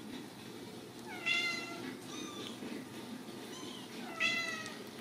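Ragdoll kittens mewing: two louder mews, about a second in and about four seconds in, with a few fainter, shorter mews between them.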